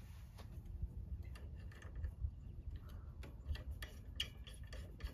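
Small metal clicks and ticks of bolt hardware and a steel cultivator tine being handled and fastened to the steel tool bar of a Hoss double wheel hoe. They come irregularly, more often in the second half, over a steady low rumble.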